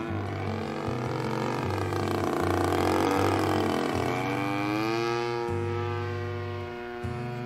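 Gas engine of a Great Planes U-Can-Do RC airplane running in flight as the plane makes a low pass. It is loudest about three seconds in, and its pitch slides up and down as the plane goes by and climbs away.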